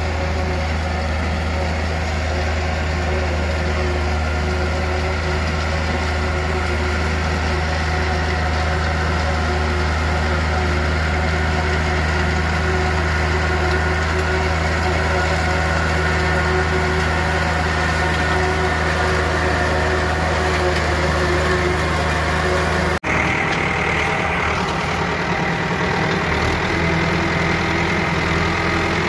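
Tractor engine running steadily. It breaks off abruptly about three-quarters of the way through, and then runs on again with a slightly brighter, different tone.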